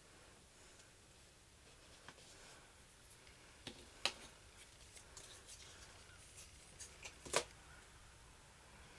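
Dinosaur-skeleton puzzle pieces clicking and tapping as they are picked off the table and fitted onto the model, with two sharper clicks about four seconds in and just past seven seconds over faint room tone.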